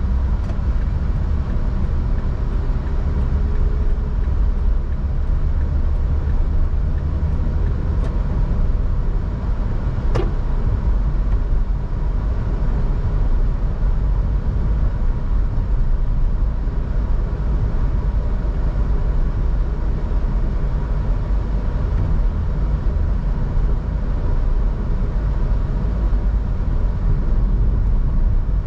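Car driving, with a steady low road and engine rumble; two short clicks come about a third of the way through.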